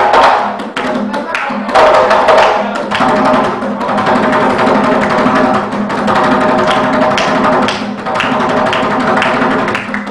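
Somali niiko dance music: a hand drum beaten in a steady run of sharp strokes under a held melody.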